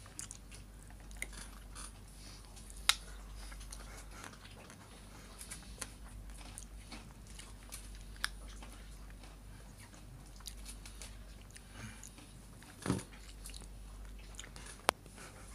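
Ice cream being bitten and chewed close to the microphone. A few sharp crunches fall here and there through the quiet chewing.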